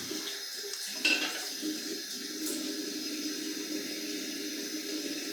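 Tap water running steadily into a sink, with one sharp knock about a second in.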